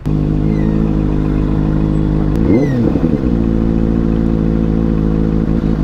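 Superbike engine idling steadily, with one quick throttle blip about two and a half seconds in that rises and falls in pitch.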